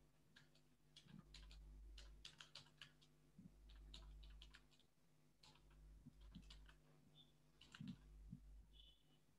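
Faint typing on a computer keyboard: irregular clusters of key clicks with short pauses between them, over a low steady hum.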